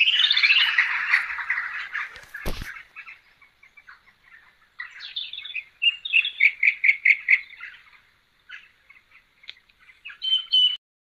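Birds chirping and singing. The song is dense at first, then a quick run of repeated notes at about four a second comes near the middle, with a single sharp knock about two and a half seconds in. The sound cuts off suddenly just before the end.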